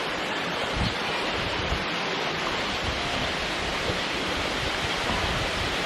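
Wli waterfall pouring down: a steady, even rush of falling water.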